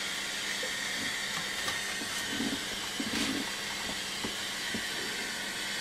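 Steady hiss from a Nordmende Transita transistor radio's loudspeaker, the set powered and running with no station tuned in, its newly fitted transistors amplifying.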